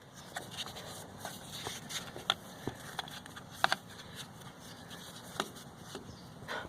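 Scattered light clicks and scuffs of handling and moving about, over a faint steady background, the sharpest clicks about two and a half and three and a half seconds in.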